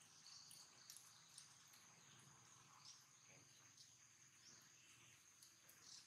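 Near silence: faint outdoor ambience with a steady high-pitched insect drone and a few soft ticks.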